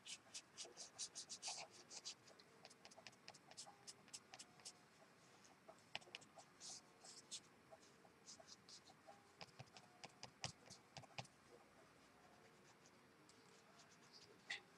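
Faint scratching of a brush pen's tip over paper as lines and shading are inked: a quick run of short strokes in the first two seconds, then scattered single strokes.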